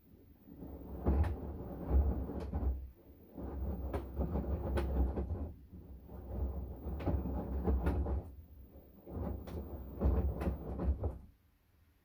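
LG direct-drive front-loading washing machine's drum turning in four bursts of two to three seconds each, with brief pauses between. Each burst is a low rumble of laundry tumbling, with scattered clicks.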